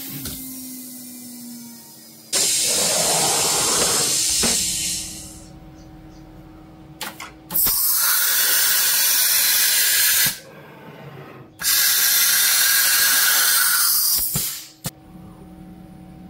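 Compressed-air hissing in three bursts of two to three seconds each, with sharp clicks between them, as the PrintNC CNC machine's pneumatic spindle changes tools at its tool rack. A faint steady hum runs underneath.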